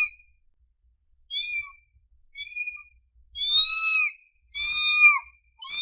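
Kitten meowing over and over in high, thin calls: about five separate meows, the later ones longer and louder, with clean silence between them. These are a hungry kitten's calls for its mother.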